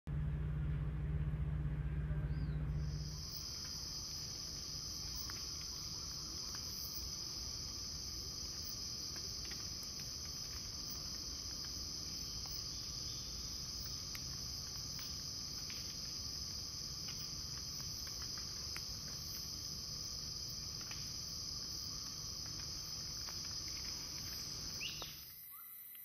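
Steady high-pitched chorus of rainforest insects, starting about three seconds in after a low rumble, with scattered short calls over it. It cuts off suddenly shortly before the end.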